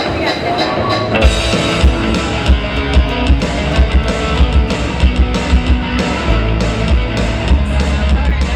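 Live rock band opening a song: amplified guitar playing, with drums and bass coming in about a second in and a steady beat after that.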